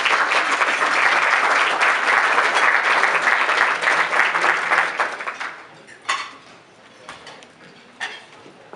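Audience of seated diners applauding, a dense patter of many hands clapping that dies away about five seconds in.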